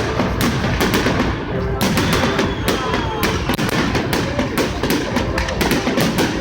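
Fireworks going off: a rapid, continuous string of bangs and crackling reports, several a second and overlapping, with a few faint whistles gliding down in pitch.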